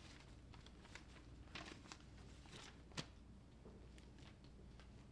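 Near silence in a small room, with faint rustles and light clicks and one sharper click about three seconds in.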